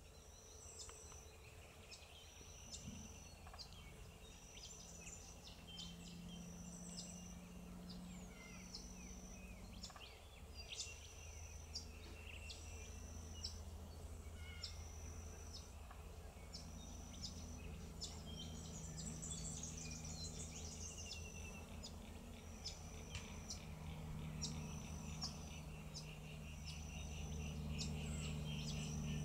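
Background birdsong: a short, high-pitched call repeated about every second and a half, with some faint twittering, over a steady low hum.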